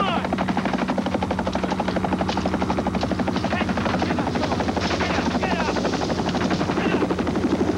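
Helicopter running close by, its rotor blades beating in a fast, even rhythm over a steady low tone.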